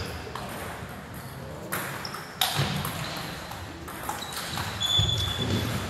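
Table tennis rally: the hollow clicks of a celluloid ball striking paddles and the table, many in irregular succession, with a few short high squeaks among them.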